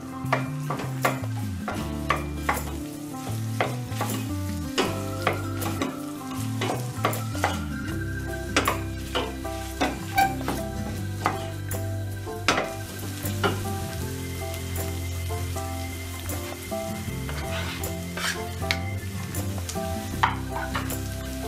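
Meat, onion and green pepper sizzling as they fry with tomato paste in a stainless steel pot, stirred with a wooden spoon that knocks and scrapes against the pot in frequent sharp clicks.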